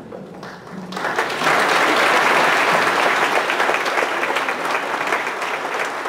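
Audience applauding, starting about a second in and quickly building to full clapping that holds steady.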